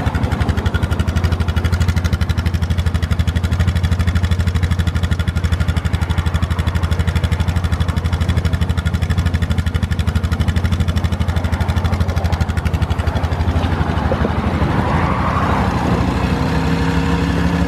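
The single-cylinder four-stroke engine of a 1996 Polaris Sportsman 500 ATV running at a steady idle, with an even, rapid exhaust pulse.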